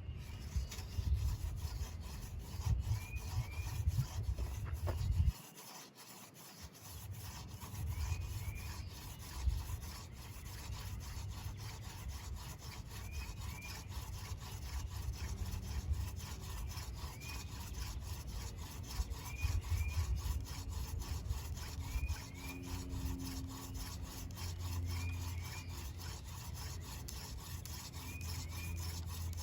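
Hand drill fire-by-friction: a horseweed spindle spun between the palms, grinding against a water oak fireboard in a steady wooden rubbing that stops briefly about five seconds in, then carries on.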